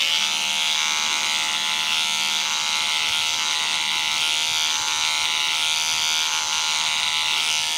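Cordless electric beard trimmer buzzing steadily as it trims beard hair on the cheek and sideburn.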